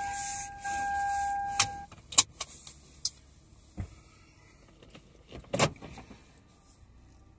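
A car's power window motor whines steadily and stops with a click about two seconds in. Scattered clicks and light knocks follow.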